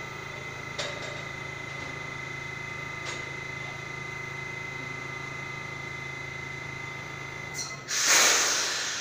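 R68A subway car standing with its doors open: a steady electrical hum with a high steady whine, and a couple of faint clicks. Near the end the hum and whine cut off and a loud burst of compressed air hisses out, fading over a second or so.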